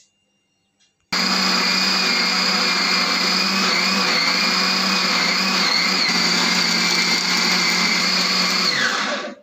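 Electric countertop blender blending a fruit smoothie with milk: it switches on about a second in, runs at a steady high whine, then winds down with falling pitch near the end.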